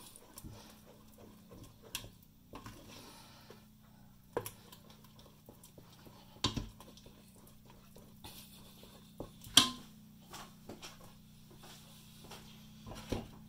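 Wooden spoon stirring thick cheese sauce in a stainless steel saucepan, with a few scattered knocks of the spoon against the pan; the loudest knock comes near the ten-second mark.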